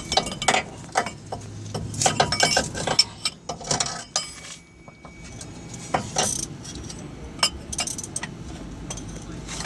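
Metal hand tools clinking and tapping against each other and against metal parts, a scattered series of sharp clicks with a short lull about halfway through.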